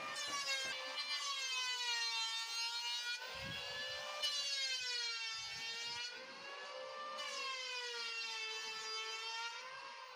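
Electric power tool motor whining steadily, its pitch sagging and recovering several times.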